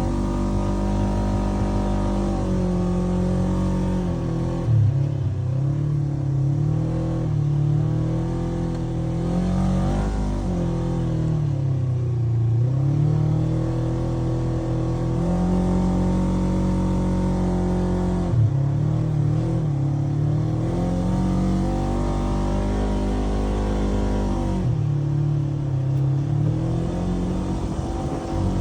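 Polaris RZR 900 UTV's twin-cylinder engine running hard, its pitch rising and falling as the throttle is worked. The pitch drops suddenly a few times, about five, eighteen and twenty-five seconds in.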